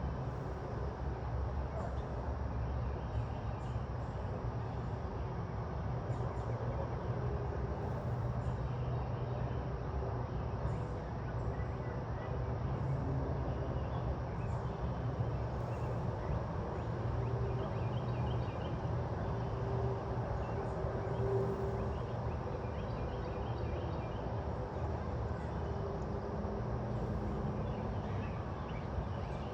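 Steady low outdoor background rumble, with faint short bird chirps now and then.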